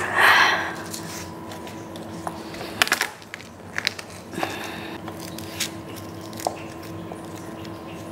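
Garlic cloves crushed under the flat of a steel cleaver pressed down by hand on a cutting board. A crunch comes right at the start, then scattered light clicks and a short rustle as the crushed cloves are handled.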